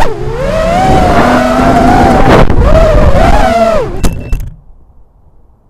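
Brushless motors and three-blade propellers of a 5-inch FPV racing quadcopter (RS2205-2300 motors) whining close to the onboard camera, the pitch rising and falling with throttle. About four seconds in there are a few sharp knocks as it comes down on the road, and the motors cut off suddenly.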